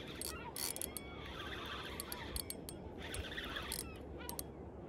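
Seagulls calling at a distance in short, scattered chirping bursts over a steady low rumble, with a few light clicks.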